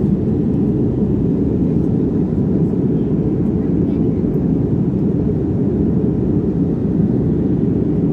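Steady low roar of a jet airliner in cruise heard from inside the cabin by a window seat: engine and airflow noise, even and unbroken.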